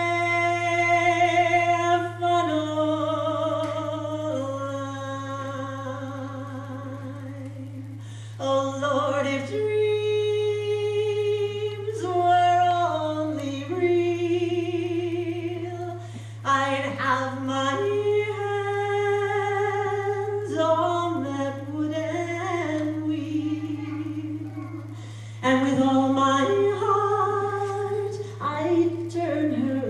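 A woman singing unaccompanied, one voice holding long notes with vibrato in phrases broken by brief pauses, with a steady low hum underneath.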